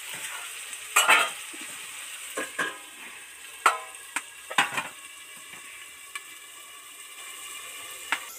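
Metal spoon scraping and clanking in a kadai of onion and tomato frying in oil, over a steady sizzle. Then a steel plate lid goes down on the pan with a few ringing metal clanks, and the sizzle goes on, quieter.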